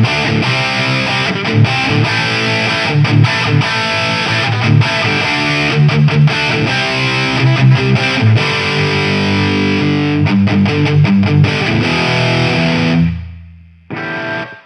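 Electric guitar played with heavy distortion through a DIY Mojotone British 800 (JCM 800-style) tube amp, riffing continuously. The playing stops about 13 seconds in and the last note rings out, followed by one short hit near the end.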